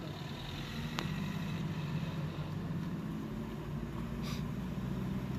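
Steady car engine and road noise heard from inside the cabin while driving, with one sharp click about a second in.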